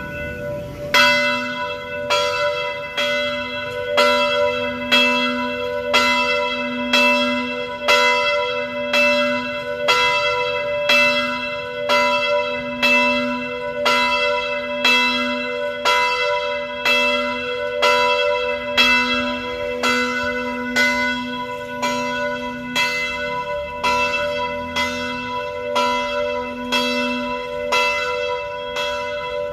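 French-made church bell ringing, struck over and over at a steady, even pace, each stroke ringing on into the next.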